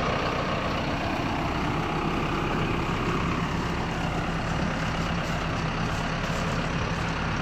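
Large engine running steadily at an even speed, with a constant low hum under a broad mechanical noise.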